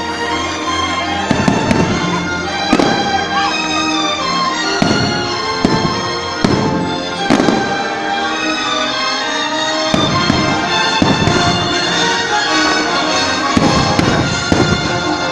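Fireworks bursting in a string of sharp bangs about one to two seconds apart, over loud music.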